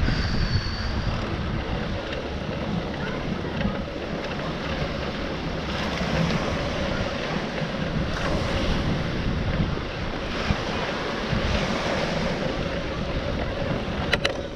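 Small waves washing up and draining back on a sandy beach, swelling and easing every second or two, with wind rumbling on the microphone. A faint steady hum runs underneath, and a couple of sharp clicks come near the end.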